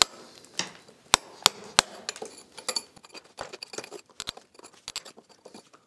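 Steel chisel chipping and picking out old lime-and-sand mortar from a crack between bricks: an irregular run of light, sharp clicks and taps. The mortar is loose and crumbles away easily.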